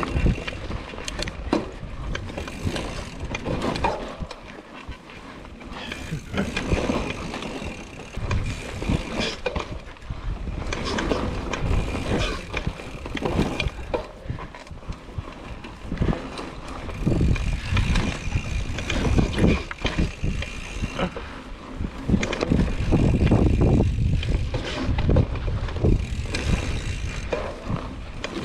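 Hardtail mountain bike ridden along a rough dirt trail: a rumble of tyres and wind that swells and fades, with frequent rattles and knocks from the chain and frame over bumps.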